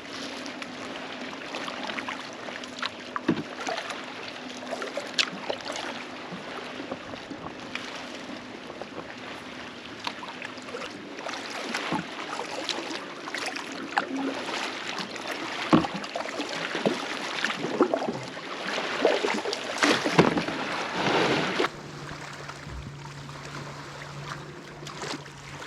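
Paddle strokes splashing and dripping in lake water, with water lapping around the board. The splashing grows heavier toward the end, then gives way abruptly to quieter water with a low steady hum underneath.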